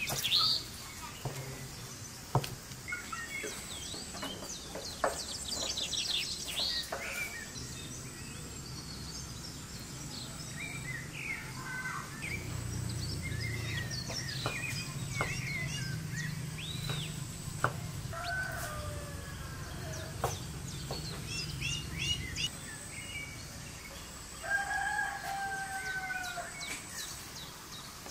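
Small birds chirping throughout, and a rooster crows once near the end, one drawn-out call of about two seconds. A few sharp taps of a knife on a wooden cutting board.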